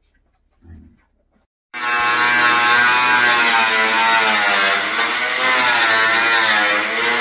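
A faint knock, then an electric power tool's motor starts abruptly and runs steadily with a loud buzz, its pitch wavering slightly as the load changes.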